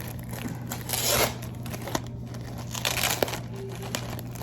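Packaging crinkling and rustling as a subscription box's contents are handled, with louder rustles about a second in and about three seconds in, and a few light clicks.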